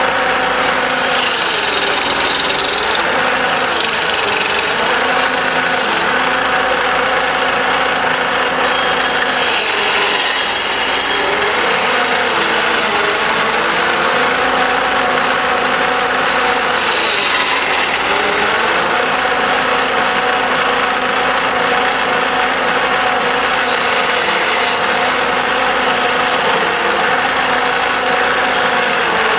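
Wood lathe running steadily while a turning tool works the spinning wooden blank of a pestle, a scraping hiss over the motor's hum. The motor note dips several times and recovers as the tool takes load.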